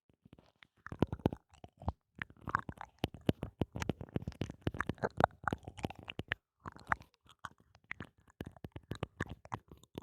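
Close-miked ASMR mouth sounds and tapping on the microphone: rapid, irregular wet clicks and taps. They are sparse at first, grow dense from about a second in, and pause briefly past the middle.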